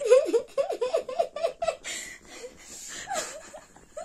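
A girl laughing in a quick run of short, high giggles, her voice altered after breathing in from a helium balloon; the laughter fades after about two seconds and returns briefly near the end.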